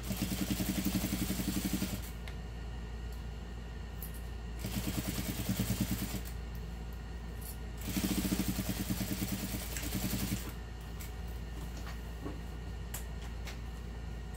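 Juki industrial sewing machine stitching in three bursts of about two seconds each, a fast even chatter of the needle over the motor's hum, stopping and starting as the fabric is guided through. A few light clicks follow near the end.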